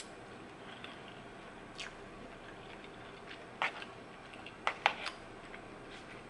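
Close-up chewing of a mouthful of pasta: soft wet mouth smacks and clicks, with a few sharper clicks, the loudest a quick pair about five seconds in.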